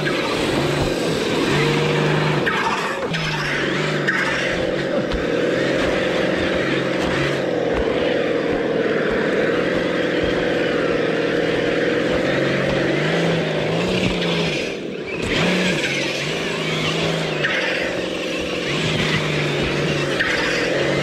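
Electric RC crawler's motor and gearbox whining as it drives, the pitch rising and falling with the throttle, with a short drop in level about fifteen seconds in.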